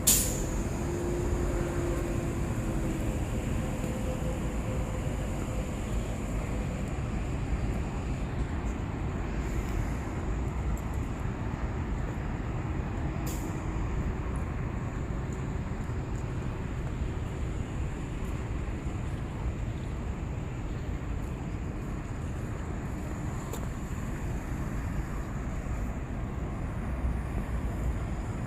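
Steady low rumble of a city bus on the move, heard from inside, with a sharp click right at the start.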